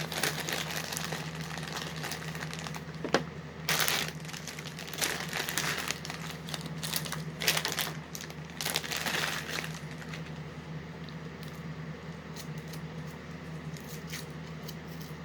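Hershey's Kisses candy packaging crinkling and tearing as it is opened, in irregular bursts that thin out after about ten seconds.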